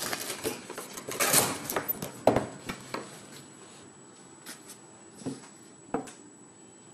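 Rustling and crinkling of a small camcorder's retail box and packaging being handled for about the first three seconds, with light knocks as items are set down on a wooden table, once about two seconds in and twice near the end.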